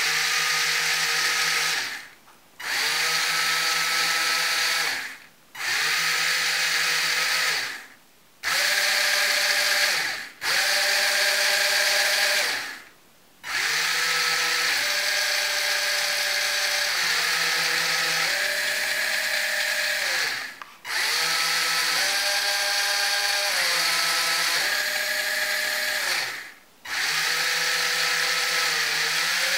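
Small DC gear motors of a 4WD robot car chassis whining in runs of a few seconds with short breaks between them, the pitch stepping up and down within several runs.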